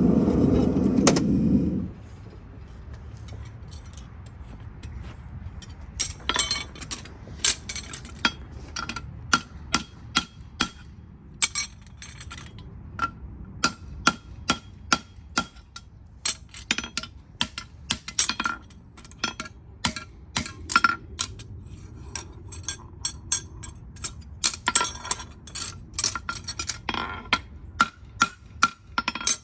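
A loud low rumbling noise cuts off abruptly about two seconds in. After that come irregular sharp metallic clicks and taps, each with a short ring, from a farrier's steel hand tools working on a hoof.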